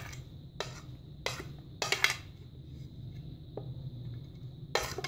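A metal spoon knocks and scrapes against a plate, about six short clacks, as chopped vegetables are pushed off it into a bowl of batter. A low steady hum runs underneath.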